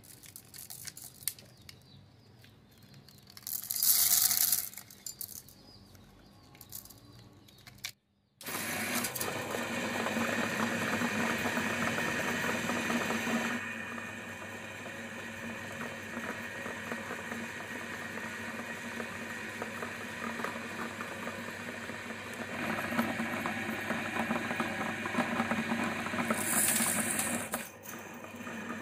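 A meat grinder crushing small topping jars: after a quieter start with one loud burst about four seconds in, the grinder runs steadily from about eight seconds on, a constant motor hum under dense grinding as the auger forces the crushed jar out through the plate.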